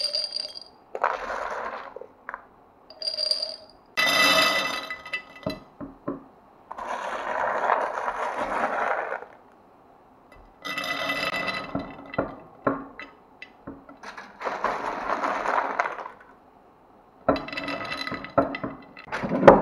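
Dry popcorn kernels poured into glass jars, rattling and clinking against the glass in about six separate pours of a second or two each.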